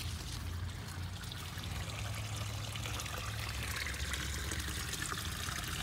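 Water steadily pouring and trickling into a backyard koi pond, under a low steady hum.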